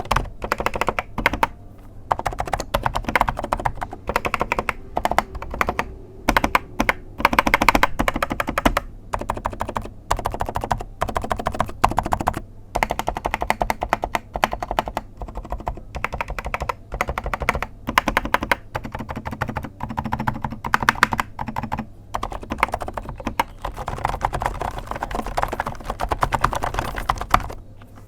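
Continuous fast typing on a mechanical keyboard with TTC Bluish White switches: a rapid, uneven clatter of keystrokes with a few brief pauses.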